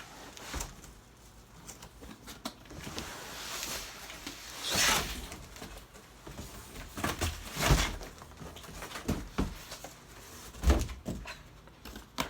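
Cardboard packaging being handled and opened: scattered rustling and scraping, a longer tearing or sliding rustle about five seconds in, and a few dull thumps, the loudest about eight and eleven seconds in.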